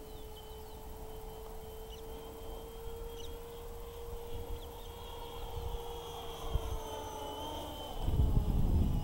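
Electric motor and propeller of an E-flite T-28 Trojan RC plane in flight at a distance, a steady whine that dips in pitch about seven and a half seconds in. A loud low rumble comes in near the end.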